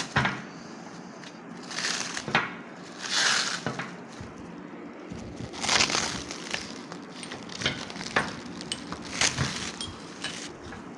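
Packaging being unwrapped by hand, crinkling and rustling in irregular bursts.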